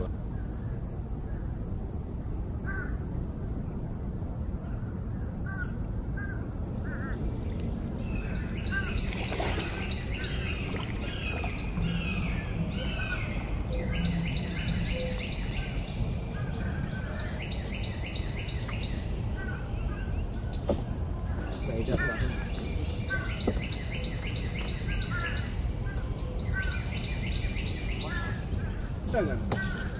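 Mangrove forest ambience: a steady high-pitched insect drone, with small birds chirping and giving rapid repeated trills from about eight seconds in, over a low steady background rumble.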